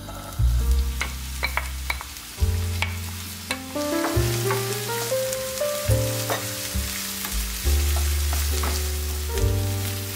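Diced onion dropped into hot olive oil in a nonstick frying pan and sizzling, with clicks of a wooden spoon stirring it against the pan. The sizzle grows from about two seconds in. Background music with held bass notes plays throughout.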